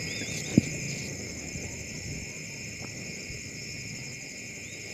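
Crickets chirping steadily, with one short click about half a second in.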